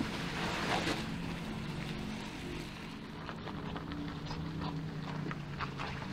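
All-electric 2024 Porsche Macan driving, heard as tyre and wind noise over a low, steady electric-drive hum that shifts a little in pitch, with scattered small ticks.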